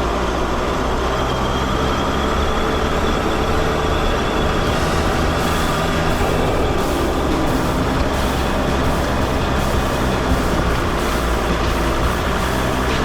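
Mercedes Sprinter van driving: steady engine and road noise with a low hum. From about five seconds in, a rougher, irregular crackling joins it.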